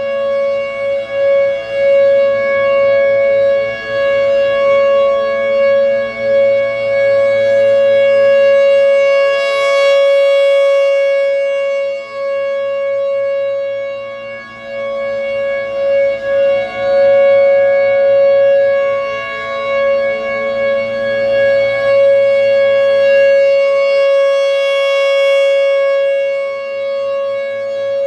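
Federal Signal Thunderbolt 1000 rotating outdoor warning siren sounding the steady Full Alert tone. One loud held pitch swells and fades in slow cycles as the rotating head sweeps past, loudest and brightest about ten seconds in and again near the end.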